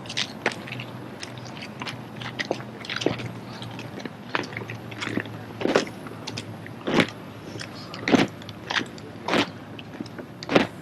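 Drill rifles being handled through a drill routine: a string of sharp slaps and knocks, roughly one a second, getting louder in the second half.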